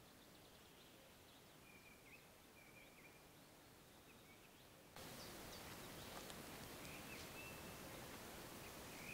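Near silence outdoors with a few faint, short, high bird calls. The background hiss rises suddenly about five seconds in.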